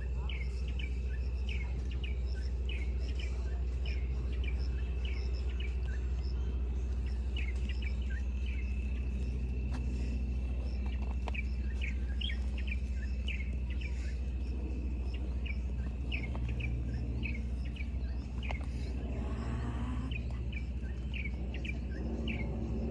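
Birds singing in short, high chirps repeated about two a second, over a steady thin high whine and a constant low rumble.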